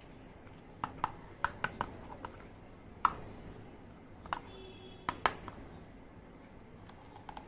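Small miniature toy kitchen pieces clicking and tapping as they are handled. About ten sharp clicks come in a quick cluster in the first two seconds, then a few sparser ones.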